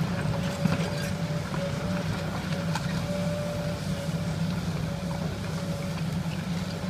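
Komatsu hydraulic excavator's diesel engine running steadily as the machine digs into a pile of brick and stone rubble, with a thin steady whine above the engine note and a few faint clicks of debris.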